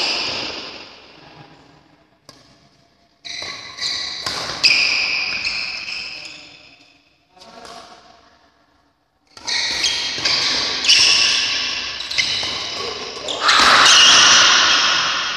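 Badminton doubles rally in a reverberant hall: rackets smack the shuttlecock with sharp cracks, and shoes squeak on the court floor. Play goes quiet for a moment about halfway through, then picks up again.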